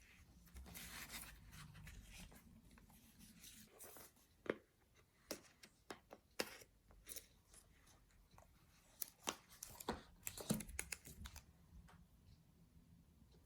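Apple Pencil box being opened by hand: a stretch of tearing, then scattered sharp clicks and crinkles of cardboard and wrapping being handled, which die away shortly before the end.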